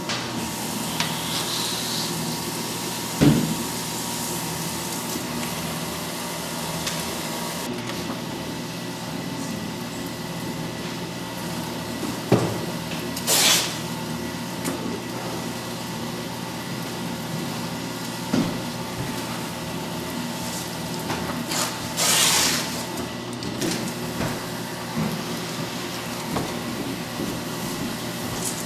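Fellowes strip-cut paper shredder running with a steady motor hum. Twice, about halfway and about two-thirds in, there is a louder burst of roughly a second as paper artwork is pulled through the cutters. A couple of short knocks come earlier.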